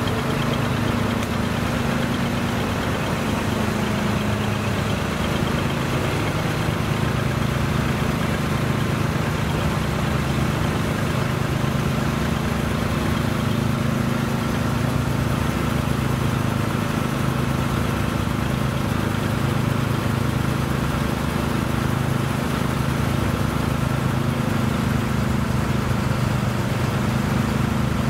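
Large trucks' diesel engines idling steadily, a constant low hum.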